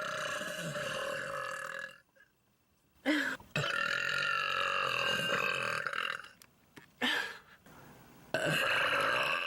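A woman burping: long, drawn-out burps, one running for about the first two seconds, then after a short pause a longer one of about three seconds with a wavering pitch, a brief one, and another starting near the end.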